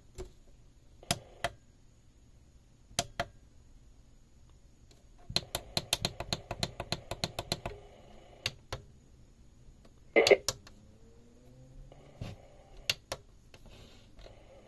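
Plastic push-buttons on a Hello Kitty KT2052P alarm clock radio clicking as they are pressed to tune the radio. Single and paired clicks come first, then a quick run of rapid clicks, a louder knock a little past the middle, and a few more clicks near the end.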